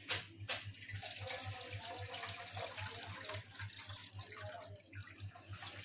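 Water sloshing and splashing in a steel bowl as finely chopped amaranth leaves are swished and squeezed by hand and the washing water is tipped off, with a few clicks near the start.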